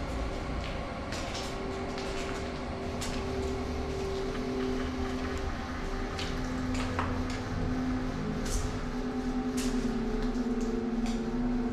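Footsteps scuffing and crunching on a debris-covered concrete floor, with scattered sharp clicks about once a second. Under them runs a low droning tone that shifts pitch a few times.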